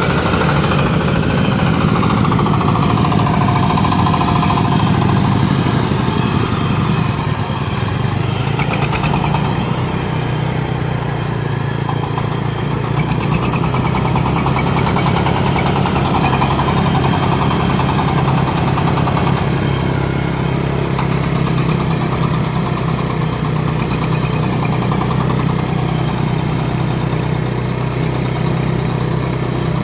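Engine of a corn sheller machine running steadily, its pitch shifting slightly about eight seconds in.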